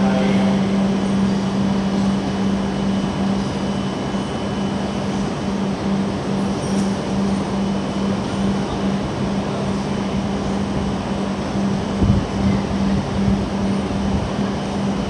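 A 683-series electric limited express train rolling slowly into an elevated station as it arrives, a steady rumbling noise over a constant low hum. A few low thumps come about twelve seconds in.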